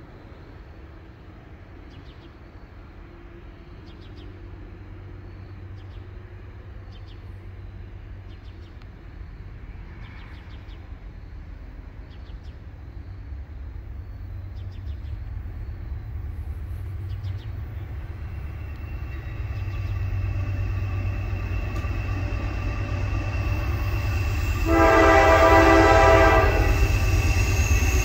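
Approaching Norfolk Southern diesel freight locomotive: a low engine rumble growing steadily louder, then one air-horn blast of about two seconds near the end.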